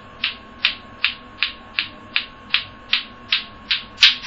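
Clackers (bate-bate): two green plastic balls on strings, swung so they knock together in a steady rhythm of sharp clacks, about two and a half a second.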